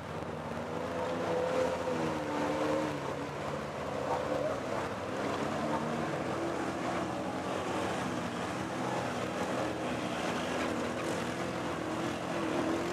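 ATV engines revving as quad bikes drive through a shallow river, the engine pitch rising and falling, over a steady rush of splashing water.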